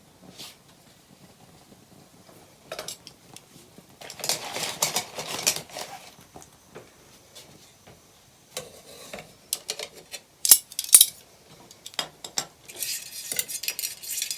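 Cooking utensils clinking, scraping and knocking against a pot while the tomato sauce is stirred and worked, with two sharp knocks about ten and eleven seconds in. A steady hiss starts near the end.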